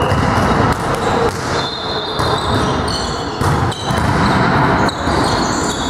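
Din of a volleyball game in a reverberant sports hall: a ball bouncing and thudding on the floor several times at irregular intervals, over a steady background of players' voices and movement.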